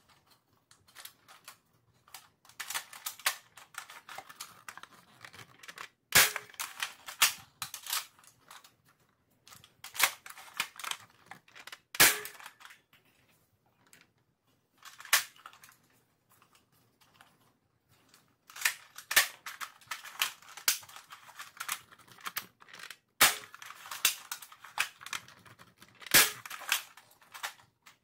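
Spring-powered Nerf Longshot blaster with a Jet Blaster Omni Kit being primed and fired dart after dart. Bursts of plastic clacking and rattling from the bolt action are broken by several sharp, loud snaps of the plunger firing.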